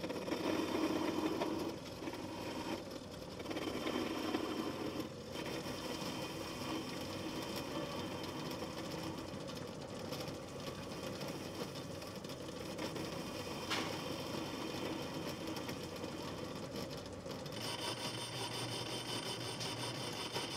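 Homemade Gingery metal lathe running on its belt drive while the cutting tool turns a cast aluminium pulley blank: a steady machine running sound mixed with the noise of the cut. It is louder in two stretches during the first five seconds.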